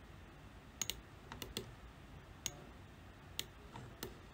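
Faint computer mouse and keyboard clicks: about nine short, sharp clicks at irregular intervals, some in quick pairs.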